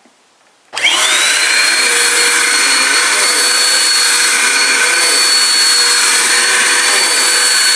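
Vacuum cleaner switched on under a second in, its motor whine rising quickly and then running loud and steady while vacuuming a rug.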